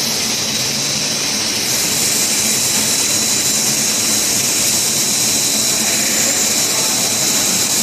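Large-capacity powder mixer running steadily, a continuous machine noise with a strong high hiss and a thin, steady high whine.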